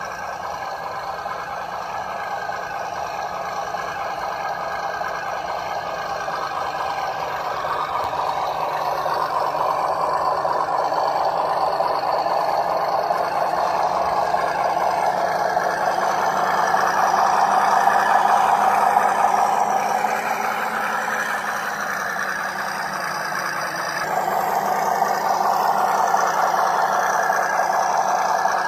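Radio-controlled WPL B36 Ural 6x6 model truck crawling over rocky dirt: the steady whine of its small electric motor and gearbox, growing louder as it comes closer. The sound eases off about three-quarters of the way through, then swells again as it drives close by.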